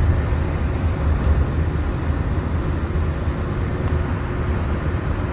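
Steady low rumble of a monorail train running, heard from inside the cabin.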